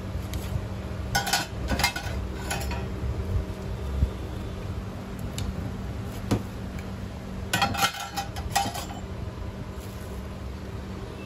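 Metal utensils clinking against metal cookware at a street-food stall: two clusters of several quick, ringing clinks, one about a second in and another about two-thirds of the way through, over a steady low hum.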